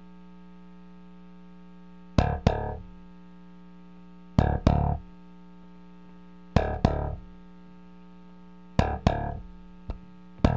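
Opening of a rock song: a steady hum under four pairs of short, distorted electric guitar chord hits about two seconds apart, with the full band coming in right at the end.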